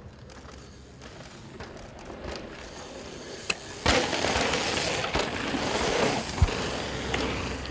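Mountain bikes on a dirt jump line: faint tyre and rolling noise at first, then a sharp knock about four seconds in as a rider hits a jump, followed by a louder rush of tyres grinding on loose dirt and gravel. A single thud comes again a couple of seconds later.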